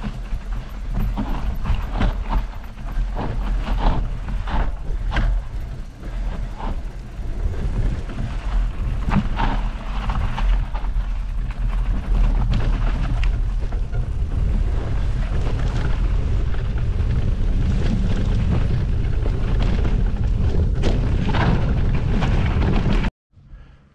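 Wind buffeting the microphone as a mountain bike rides down a rough dirt and gravel trail, with the bike's rattles and knocks over the bumps. It cuts off suddenly near the end.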